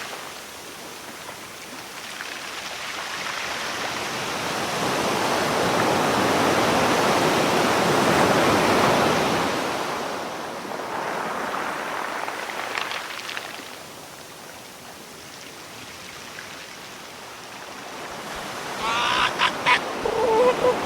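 Rushing water that swells up over several seconds and then fades away, followed near the end by a few short, pitched animal calls.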